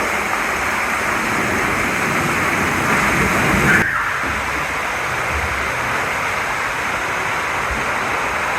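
Steady rush of splashing, falling water, swelling a little about three to four seconds in and then dropping suddenly before running on steadily.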